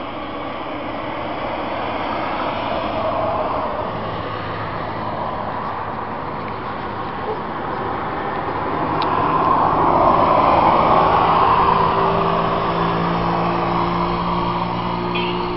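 Road traffic noise, a steady rush that swells as a vehicle passes about two-thirds of the way through. A low engine hum carries on through the last few seconds.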